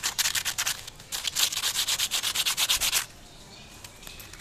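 Crisp gram-flour batter crust on fried eggplant fritters (beguni) crackling and crunching as hands break them open, a dense rapid crackle that stops abruptly about three seconds in. The crackle is the sign that the coating is still crisp well after frying.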